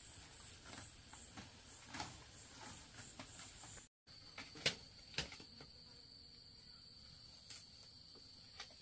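Insects shrilling steadily at a high pitch, with a few scattered clicks and knocks. The sound drops out for a moment about four seconds in, and after that a second, steady and somewhat lower insect tone joins the high one.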